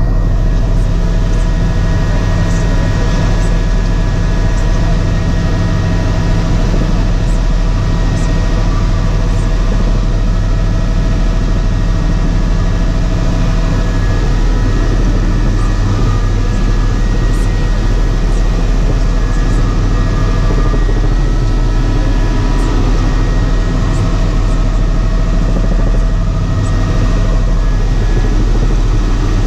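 Helicopter cabin noise in steady flight: a loud, even rotor drone with a steady high whine from the engine over it.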